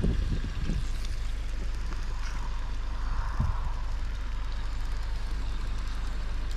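Wind rumbling on the microphone over a steady hiss, with a couple of soft knocks as a fork turns meat in a frying pan on a portable camp stove.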